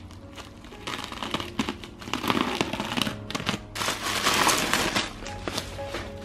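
Plastic mailer bag and black bubble wrap crinkling and rustling as the bag is torn open and the wrapped package pulled out, loudest from about two to five seconds in, over soft piano background music.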